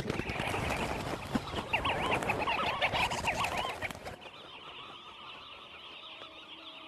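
Birds calling in quick, repeated chirps over a dense rushing noise, many calls overlapping. After about four seconds it cuts off suddenly to a quieter steady hiss with faint low tones.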